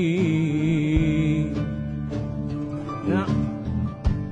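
Live band playing a slow Arabic song on keyboard and drums. A singer's held, wavering note ends just after the start and the band sustains a chord. Single drum hits land about a second in and again near the end, with a short rising phrase about three seconds in.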